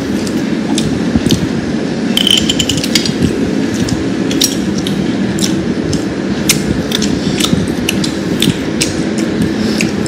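Eating sounds close to the microphone: irregular sharp clicks and smacks, a few a second, with a brief high squeak about two seconds in, over a steady low rumbling noise.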